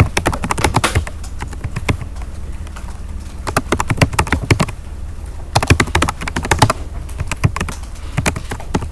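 Typing on a Chromebook keyboard: quick runs of key clicks with short pauses between them.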